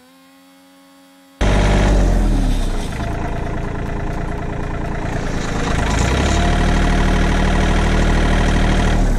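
Background music fades on a held note, then a sudden cut about a second and a half in to a tractor engine running loud under load, its pitch sagging and recovering a couple of times.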